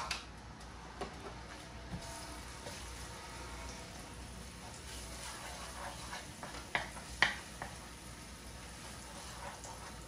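Minced garlic sizzling quietly in a little hot oil in a nonstick frying pan, stirred with a wooden spoon. A sharp knock comes right at the start and two more clicks of the spoon on the pan about seven seconds in.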